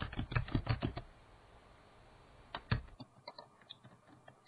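Keystrokes on a computer keyboard: a quick run of clicks in the first second, then a few scattered key presses in the second half, as numbers and commas are typed.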